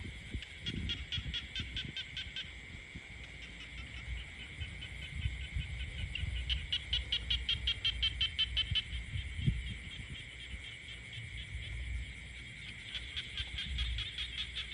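Frogs croaking: a fast pulsed call of about eight pulses a second comes in three bouts of roughly two seconds each, the last starting near the end. Underneath it runs a steady high-pitched chorus, with a low rumble.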